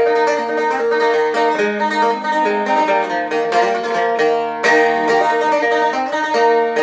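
Spruce-top Seagull Merlin M4, a four-string diatonic stick dulcimer, played fast: picked notes with hammer-ons and pull-offs over a steadily ringing drone, giving a punchy, banjo-like sound.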